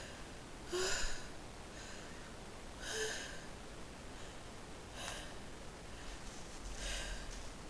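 Soft, short breaths between sneezes in a sneezing fit set off by a pungent spice: four quiet inhalations about two seconds apart, the first two with a small vocal catch, as the next sneeze builds.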